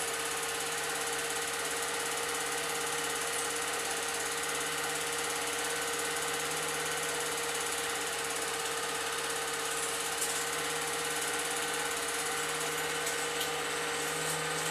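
8mm film projector running: a steady motor whir with the rapid, even clatter of the film being pulled through the gate, and a couple of sharper clicks near the end.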